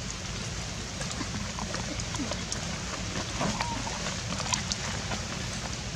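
Steady background hiss with scattered light ticks and a few short, faint squeaks from macaques.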